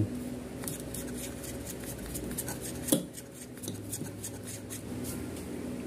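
A bristle paintbrush scrubbing dust off a stand fan motor's gear housing: a run of short, quick scratchy brush strokes, with one sharper knock about three seconds in.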